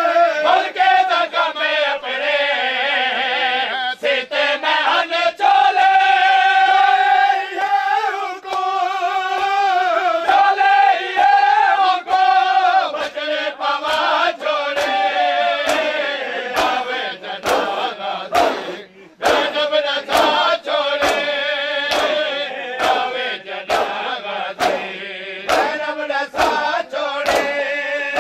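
Men chanting a mourning lament in chorus with long held notes. About halfway in, sharp rhythmic slaps of hands striking bare chests (matam), about two a second, join the chant and keep time with it.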